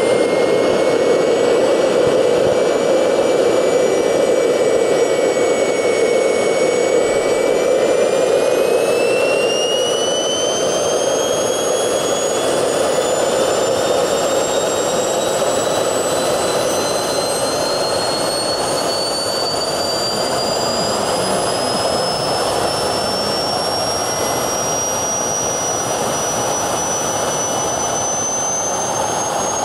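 Swiwin SW120B RC turbojet engine running as it ramps up to idle: a loud rushing noise under a high whine. The whine holds its pitch at first, then from about eight seconds in climbs steadily higher as the turbine spools up.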